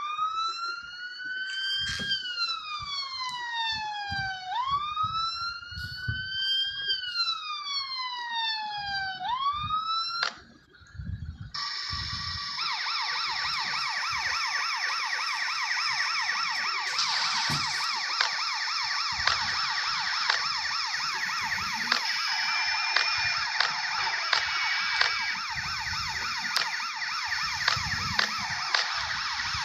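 Ambulance sirens. First comes a slow wail that rises and falls about every five seconds. After a short break about ten seconds in, a different, much faster warbling siren tone runs steadily.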